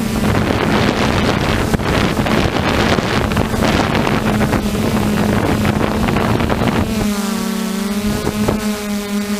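F550 hexacopter's brushless motors and propellers droning steadily, with heavy wind buffeting on the onboard camera's microphone. About seven seconds in the wind noise drops away and the motors' whine comes through clear and even.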